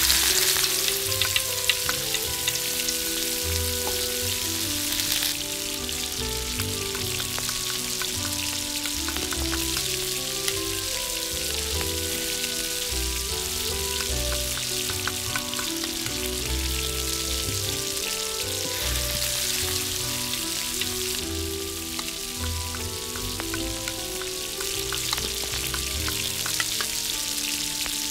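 Chopped garlic and ginger sizzling in hot oil in a miniature steel pot. The sizzle is loudest in the first few seconds after they go in, then settles to a steady frying hiss, with light clicks of a small spoon stirring. Soft background music plays underneath.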